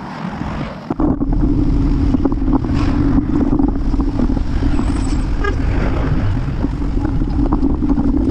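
Street traffic and road noise heard from a moving bicycle: a steady hum with scattered small clicks, setting in after a short dip about a second in.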